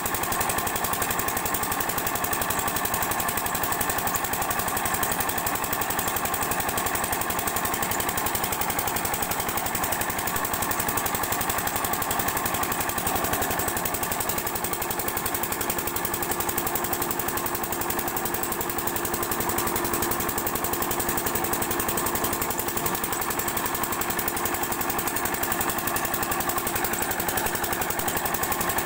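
Single-cylinder 8 hp diesel water-pump engine running steadily with a rapid, even beat, while water gushes from the outlet pipe into the tank.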